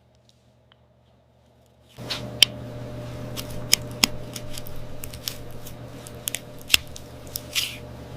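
Sharp snips and clicks of hoof-trimming tools cutting away hoof horn and dead tissue, scattered irregularly over a steady low hum. They start about two seconds in.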